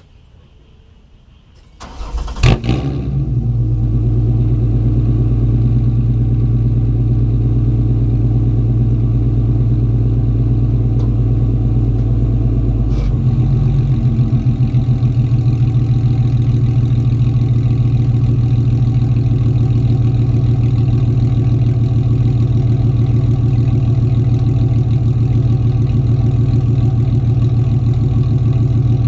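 A 2007 Ford Mustang's 4.0-litre V6, fitted with long-tube headers, an X-pipe, no catalytic converters and a Magnaflow dual exhaust, starts about two seconds in with a sharp burst as it cranks and fires. It then runs at a loud, steady idle out of the tailpipes, and the idle note shifts about halfway through.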